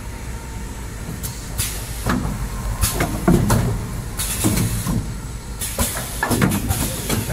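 XY-398D six-roll kitchen towel bundle packing machine running: a steady mechanical hum, broken every second or so by short hisses of compressed air from its pneumatic cylinders and by the knocks of moving parts.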